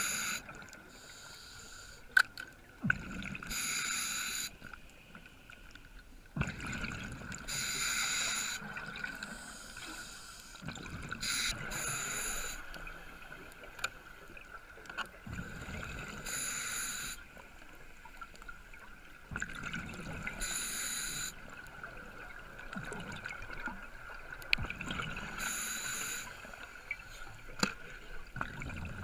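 Scuba regulator breathing underwater: a burst of exhaled bubbles about every four seconds, with a quieter steady hiss between breaths. A few sharp clicks stand out, one about two seconds in and two near the end.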